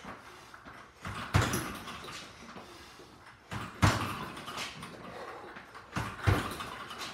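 Boxing gloves punching a double-end bag: five sharp slaps a couple of seconds apart, two of them coming in quick pairs.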